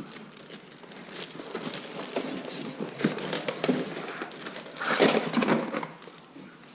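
Rustling and small clicks and knocks as a new mechanical keyboard is handled and unwrapped from its packaging, with a louder burst of rustling about five seconds in.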